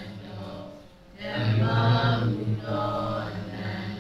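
Buddhist chanting in Pali by low voices in unison, in long held phrases with a brief break about a second in.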